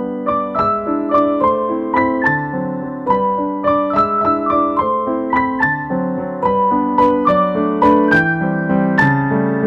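Background piano music: a melody of single notes moving every half second or so over held lower chords.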